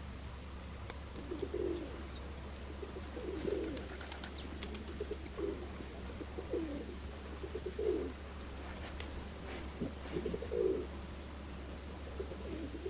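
A bird cooing: short, low-pitched calls repeated every second or two, over a steady low hum.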